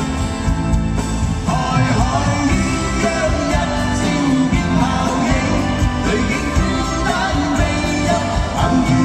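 A live Cantopop song: male voices singing over guitar and band accompaniment, heard through the arena PA from the audience.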